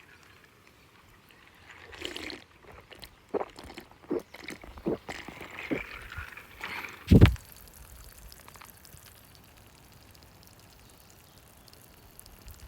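Liquid being poured, among a few light clicks and knocks, with one loud thump about seven seconds in.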